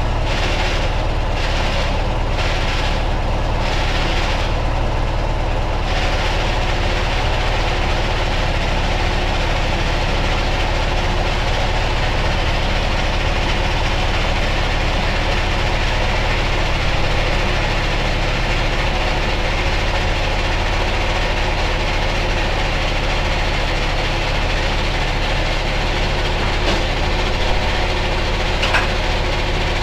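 A machine running steadily, with a regular pulsing about once a second during the first few seconds.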